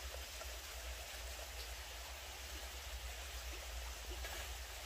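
Steady outdoor background hiss with a low rumble underneath, and a few faint light taps as dry twigs are slotted by hand into a titanium twig stove.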